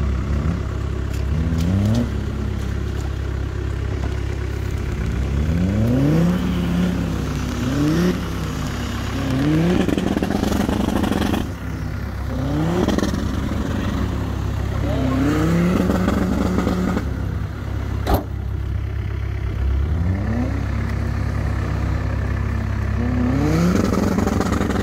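Off-road 4x4's engine revving up and dropping back again and again over a steady low rumble. There is one sharp click about eighteen seconds in.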